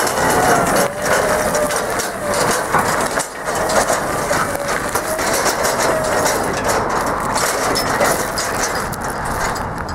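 JLG 2632E2 battery-electric scissor lift driving slowly across gravel: a faint wavering electric motor whine over the steady crunch of stones under its solid tyres.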